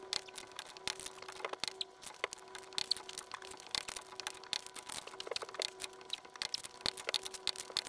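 Rapid metallic clicking of a large 3/4-inch drive click-type torque wrench, ratcheting as it is worked around the lug nuts of a truck-size wheel while they are torqued down to about 450 ft-lb. A faint steady hum runs underneath.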